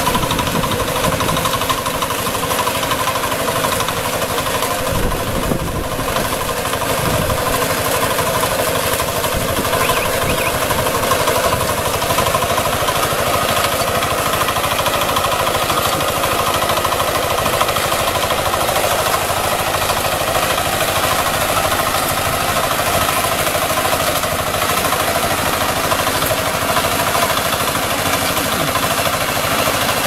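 Small single-cylinder engine of a walk-behind rice and wheat reaper-binder running steadily under load while the machine cuts standing rice, with a fast, even knocking beat.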